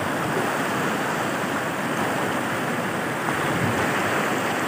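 Rushing water of a river in flash flood: the swollen, fast current makes a steady, even roar.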